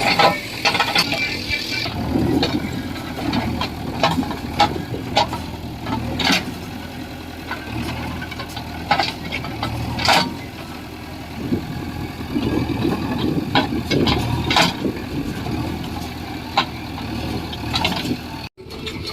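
JCB 3DX backhoe loader's diesel engine running steadily as the machine works soil, with frequent sharp clanks and knocks over the rumble.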